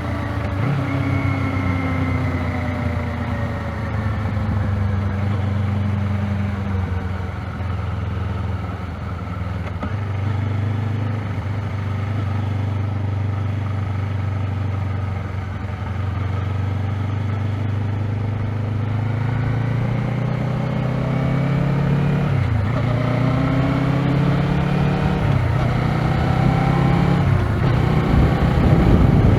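Kawasaki Z500 motorcycle engine on its stock exhaust, running continuously while ridden. The engine note falls as it slows, holds steady, then climbs again as it accelerates. There is a brief dip about 22 seconds in, as at a gear change, and it is loudest near the end.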